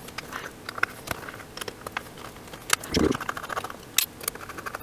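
Hard drive spindle motor's mounting screws being unscrewed from the drive's chassis: a run of small, irregular metal clicks and scrapes, with a duller knock about three seconds in.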